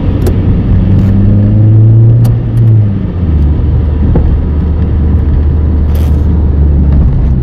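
Car engine heard from inside the cabin, its drone rising slowly as the car pulls in gear, then dropping in pitch at an upshift about three seconds in and running on steadily.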